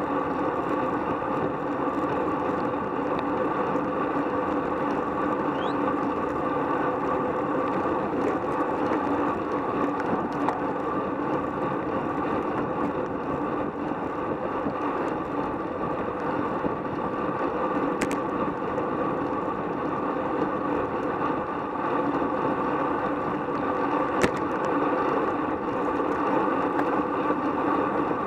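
Steady rush of wind and road noise from riding a road bicycle at speed in a group of cyclists, heard as wind on the bike-mounted camera's microphone. Two brief clicks stand out in the second half.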